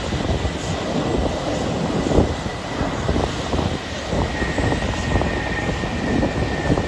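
Boeing 737-400's CFM56 jet engines whining steadily as the airliner taxis and turns, a high whine over a low rumble. The whine drops slightly in pitch about two-thirds of the way through.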